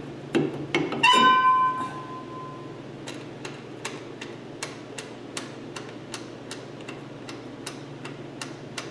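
Drum brake self-adjuster ratcheting the star-wheel adjuster tooth by tooth as its cable is pulled again and again: a steady run of sharp clicks, about two or three a second. About a second in, a struck metal part rings with a clear tone for about a second.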